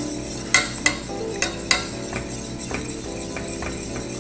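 Wire whisk stirring a thick béchamel sauce in a stainless steel pot, its wires clinking irregularly against the pot.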